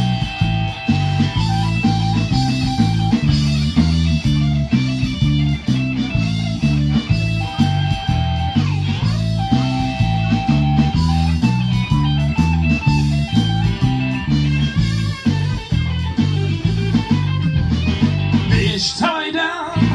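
A rock band plays an instrumental break in a blues-rock song: electric guitar over a steady, repeating bass line and drums.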